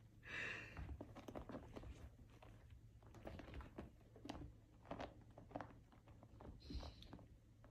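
Two kittens play-fighting on a fabric-covered ottoman: faint, scattered scratching and tapping of claws and paws on the woven cover.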